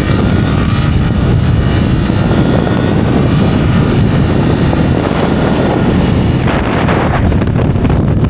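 Suzuki GSX-8R's 776 cc parallel-twin engine pulling hard under full acceleration, heard from the rider's seat with heavy wind noise on the microphone. The high hiss falls away about six and a half seconds in as the bike slows.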